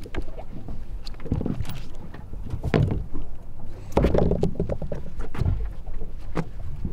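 Water lapping and slapping against the hull of a small fishing boat, with scattered knocks and clicks on board.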